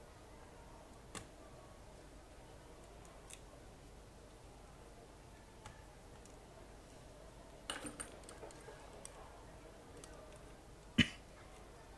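Faint handling noises from parts being worked on inside an open ThinkPad T500 laptop during reassembly: scattered small clicks and taps, a quick cluster of them about eight seconds in, and one sharper click about eleven seconds in.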